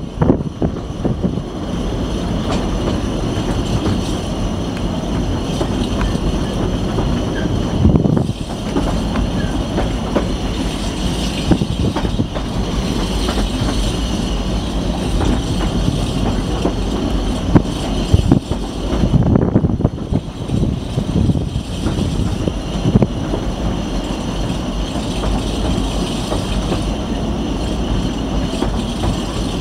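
Narrow-gauge railway carriage running along the track, heard from on board: a steady rumble of wheels on rail with a thin high wheel squeal, broken by occasional knocks and jolts.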